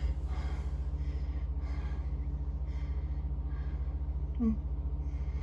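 A person breathing audibly while working, with a short voiced grunt about four and a half seconds in, over a steady low hum.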